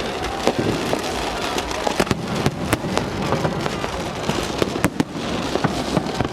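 Fireworks going off in quick succession: a dense, irregular run of sharp bangs and cracks, several a second, over a steady din.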